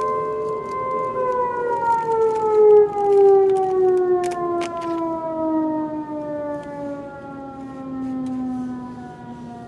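Outdoor warning siren sounding a wail, the signal for a fire/EMS call-out: a steady tone that begins a long, slow fall in pitch about a second in. A few sharp clicks come in the middle.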